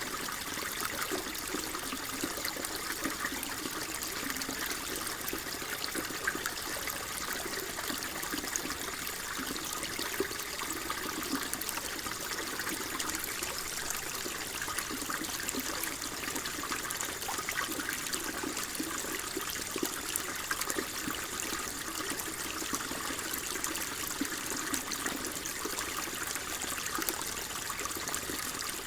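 Water flowing and trickling steadily, a continuous gurgling rush with no break.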